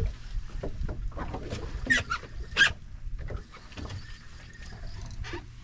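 Wind and water noise aboard a small fishing boat, with scattered knocks and clicks; two sharper clacks stand out about two and two and a half seconds in.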